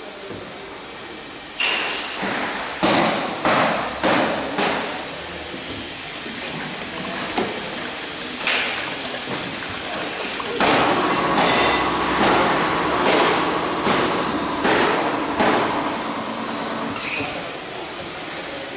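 Packaging filling machine running: a series of sharp mechanical clunks and knocks, with a steady motor whine coming in about ten seconds in.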